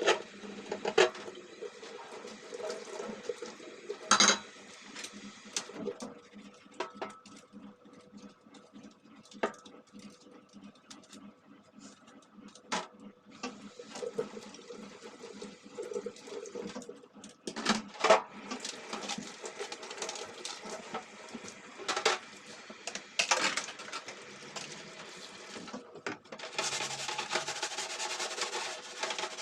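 Range-hood parts being washed at a sink: repeated clatters and knocks of metal parts with some water, then steady scrubbing a few seconds before the end.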